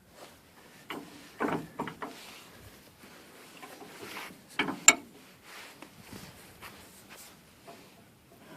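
Knocks, scrapes and clanks of a heavy antique Yost bench vise being handled and worked, with a sharp metallic click about five seconds in.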